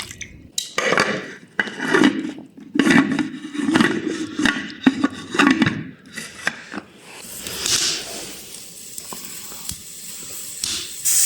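A utensil clanking and scraping against a metal cooking pot while stirring a stew, then a steady hiss for the last few seconds.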